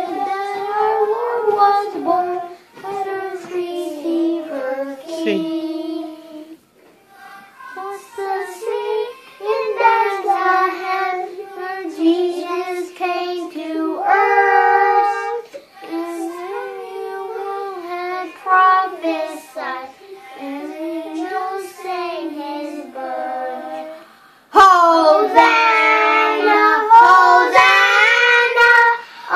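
A small group of young children singing a song together. About 25 seconds in, the singing suddenly gets louder.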